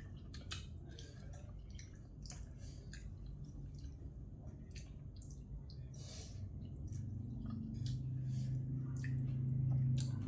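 Wet eating sounds: chewing and smacking on glass-noodle seafood salad, made up of many short moist clicks. A low hum rises and grows louder in the last few seconds.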